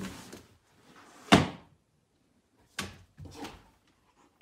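A single loud bang about a second in, followed by two softer knocks, like a door or a piece of furniture being bumped.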